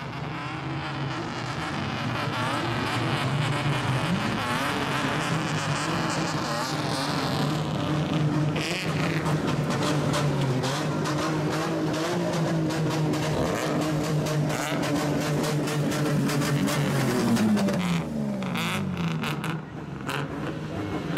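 Lowered kaido racer cars with straight-pipe exhausts driving past, their engines held at high revs with a loud, raw exhaust note. The note climbs in pitch about four seconds in and drops away after about seventeen seconds, with sharp crackling throughout.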